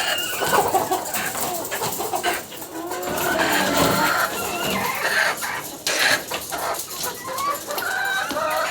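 A flock of caged chickens clucking and calling over one another, with scattered clicks and knocks among the calls.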